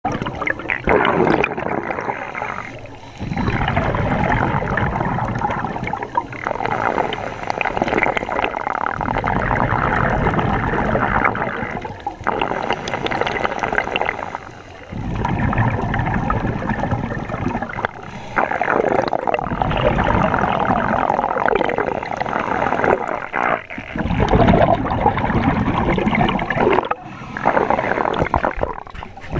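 Scuba diver breathing through a regulator, heard underwater: long stretches of gurgling exhaust bubbles broken by short quieter gaps every few seconds.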